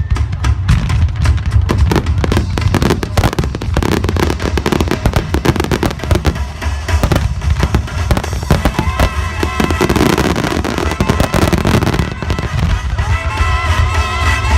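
A dense barrage of fireworks bursting and crackling in rapid succession over a constant deep rumble. Music plays along, its melody coming through more clearly in the second half.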